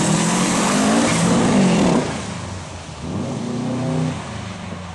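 A first-generation Subaru Impreza rally car's flat-four engine revving close by as the car powers through a bend, its pitch climbing until it drops away about two seconds in. After that a quieter, more distant rally car's engine revs up and down.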